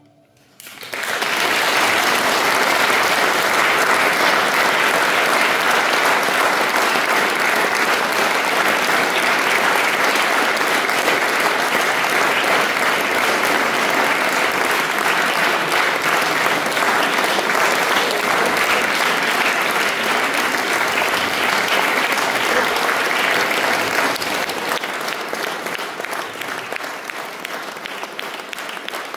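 Audience applauding. The clapping starts about a second in, holds steady, and eases off somewhat for the last few seconds.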